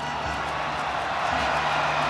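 Steady crowd noise from the stadium stands, an even hum of many voices.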